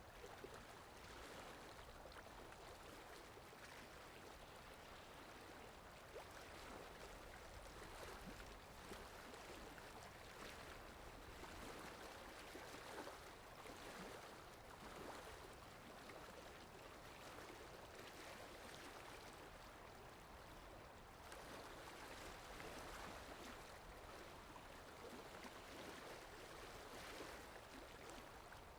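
Faint sound-effect of a flowing stream: a steady, continuous rush of water that swells and eases gently.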